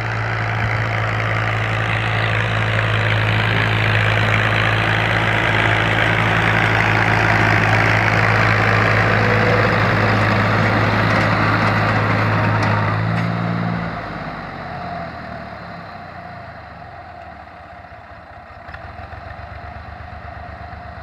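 Fiat 480 tractor's diesel engine running steadily under load with the rotavator churning the soil behind it. The sound is loud and steady, then drops off sharply about two-thirds of the way through as the tractor pulls away.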